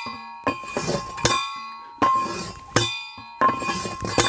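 A steel manual post driver being slammed down repeatedly onto a post. Each blow is a sharp metallic clang that rings on, about seven strikes under a second apart.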